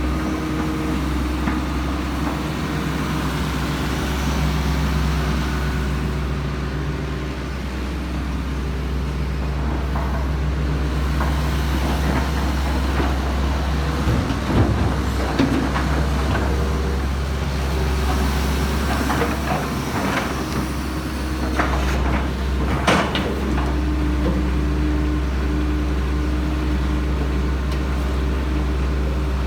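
Hitachi Zaxis 220LC excavator's diesel engine running steadily, its pitch shifting as the machine works. Several knocks and clatters come around the middle and again just over twenty seconds in.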